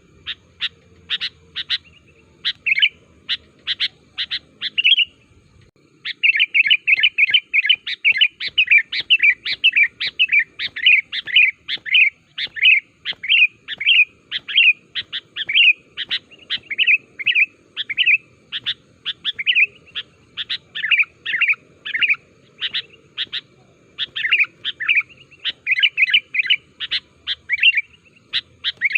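Sooty-headed bulbul (kutilang) calling busily in quick strings of short, bright chirps. It pauses briefly about five seconds in, then runs on in a long, fast stream of chirps.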